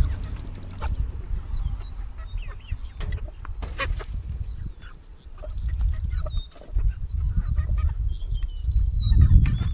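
A pen of meat chickens chirping and clucking, with scattered sharp clicks, while they eat from freshly filled feeders. A low rumble grows louder near the end.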